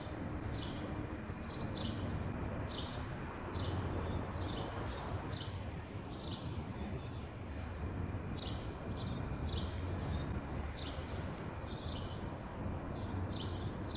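Small birds chirping in short, repeated calls, about one or two a second, over a steady low rumble of background noise.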